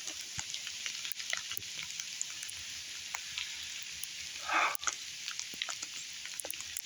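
Tiny ice pellets falling and pattering: a steady hiss made up of many small ticks. A short, louder noise comes about four and a half seconds in.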